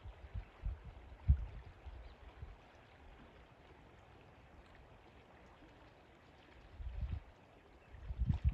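River water flowing in a steady rush, with low rumbling thuds on the microphone in the first couple of seconds and again near the end.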